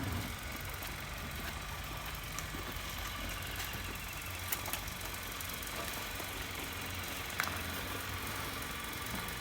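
A steady low engine hum, with a few sharp clicks over it, the loudest about seven seconds in.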